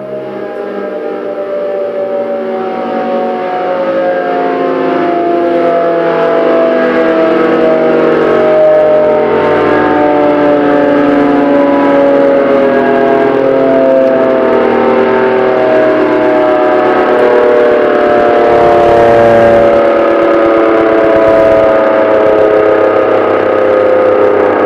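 Elektror L138 electro-mechanical air-raid siren sounding a loud, continuous howl. It swells over the first few seconds and then holds, with its pitch sagging slowly.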